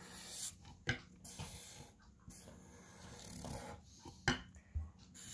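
Sharpie permanent marker drawn across paper in several rasping, squeaky strokes, with a few sharp taps of the marker on the paper.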